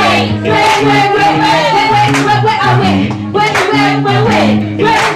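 A singer holding long, wavering notes without clear words over live-concert backing music with changing bass notes.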